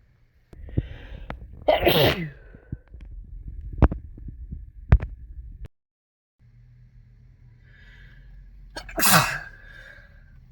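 A person with a cold sneezing twice, each sneeze preceded by a breathy intake, the first about two seconds in and the second about nine seconds in. Two sharp clicks fall between them.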